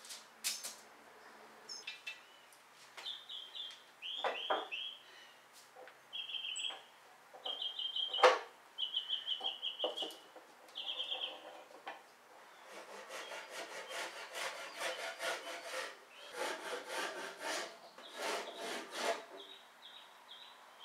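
Bar clamps and 2x10 boards being handled: one sharp knock about eight seconds in, and runs of scraping and rubbing in the second half. A bird chirps in short, high, repeated trills through the first half.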